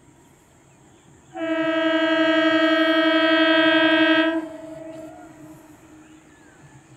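EMU local train's horn: one long steady blast of about three seconds, starting about a second in, then cutting off and trailing away.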